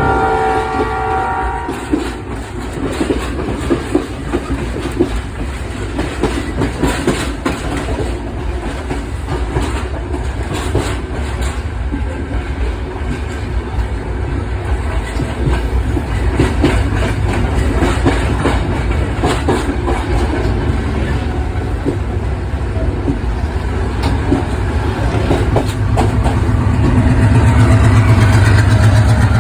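Intercity express train running on the rails: its horn sounds a chord that cuts off about a second and a half in, followed by a steady rumble with wheels clicking over rail joints, the low rumble growing louder near the end.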